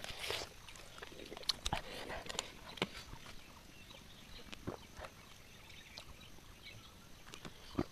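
Quiet eating and drinking sounds: scattered short clicks and smacks of mouths chewing sour heikha fruit, with a plastic water bottle drunk from. The clicks are most frequent in the first three seconds.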